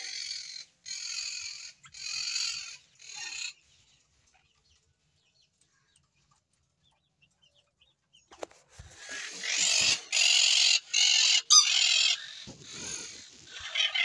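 Hoarse, raspy food-begging calls of a naked, newly hatched bird chick, in short bursts of about half a second each. Four come at first, then they stop for about five seconds, and they start again about eight seconds in as a quicker run.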